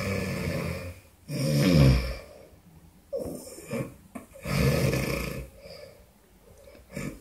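Snoring with a trembling sound: a run of snoring breaths, the loudest about a second and a half in and again around five seconds in, with quieter gaps between.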